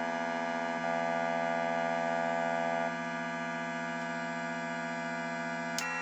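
Casio Casiotone MT-100 electronic keyboard holding buzzy sustained tones. The upper notes change about a second in and again near three seconds in, and there is a brief click near the end.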